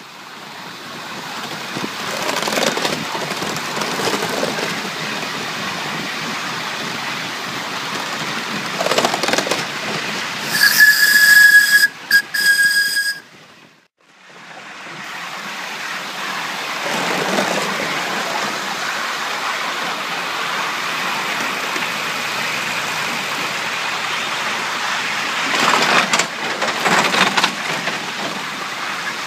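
5-inch gauge live steam model of an LNER Peppercorn A1 Pacific running along its track, with steady running noise. A high whistle sounds in two blasts about eleven seconds in, and the sound drops out briefly about halfway through.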